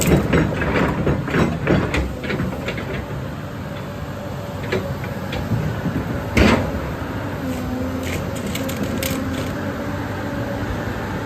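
Caterpillar 329D excavator running, with a steady low engine hum and a run of metallic clanks and knocks in the first couple of seconds. One loud clunk comes about six and a half seconds in.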